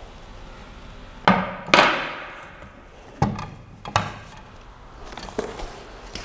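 3D-printer gantry frame of metal rails and a motor knocking against a glass tabletop as it is set down: two sharp knocks close together about a second and a half in, the second the loudest, then two lighter knocks around three and four seconds in.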